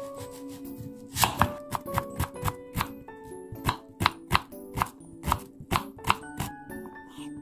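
Kitchen knife dicing an onion on a wooden cutting board: sharp knocks of the blade through the onion onto the board, about three a second, starting about a second in with a short pause midway, and stopping near the end.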